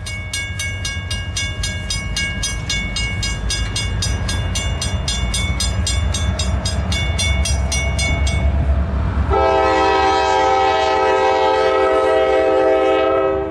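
Grade-crossing warning bell ringing rapidly, about four strokes a second, over a low rumble from the approaching train; the bell stops about two-thirds of the way in. A moment later a multi-tone locomotive air horn sounds one long, loud blast of about four seconds as the train nears the crossing.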